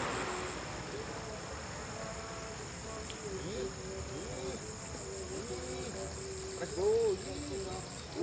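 Crickets and other insects trilling steadily in a pulsing chorus. A string of short rising-and-falling calls starts partway in and is loudest about seven seconds in.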